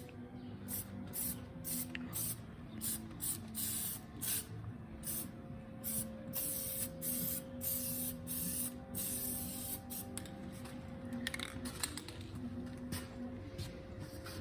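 Paint being sprayed in a series of short hissing bursts, some brief and some held for about a second, over a faint steady hum.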